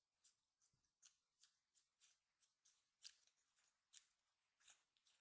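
Chapstick tube handled close to the microphone: a run of faint, crisp clicks and taps, a few a second, with a few louder ones.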